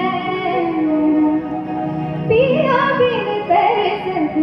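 A woman singing a Marathi devotional song live through a microphone, holding long notes in a wavering, ornamented melody over steady held accompaniment tones.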